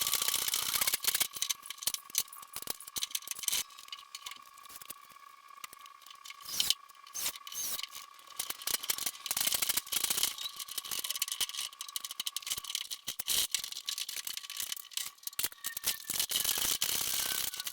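Irregular metallic rattling and clicking from the heavy sliding table saw and its moving gear as it is shifted, over a steady high-pitched whine, with a slowly falling tone near the end.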